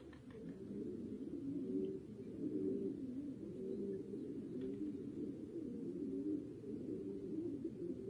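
Several domestic pigeons cooing, their low, rolling coos overlapping one another continuously.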